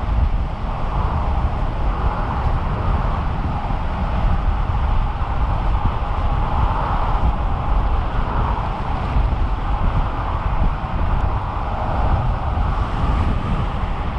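Wind rushing and buffeting over the camera microphone while riding an electric bicycle at speed: a steady, loud low rumble with a rushing hiss over it.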